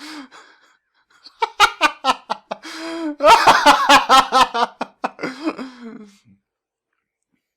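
A person laughing in bursts of rapid pulses, loudest in the middle, then stopping about six seconds in.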